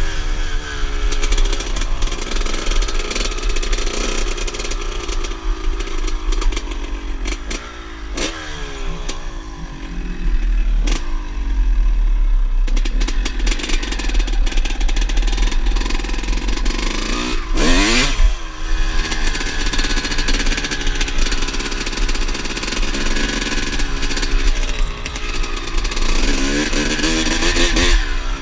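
Two-stroke dirt bike engine revving, its pitch climbing and falling again and again as it pulls through the gears. Near 18 s the pitch dips sharply, then shoots back up.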